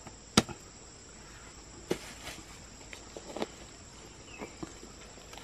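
A steady high-pitched insect drone, with a sharp knock about half a second in and a few fainter knocks and rustles after it.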